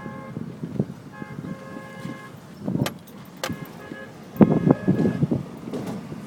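Sandstorm wind gusting against the microphone, heaviest in the second half, while a vehicle horn sounds in several separate blasts of up to about a second.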